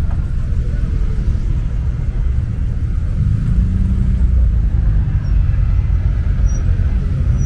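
Low, steady rumble of car engines, with one engine's note rising and falling about midway.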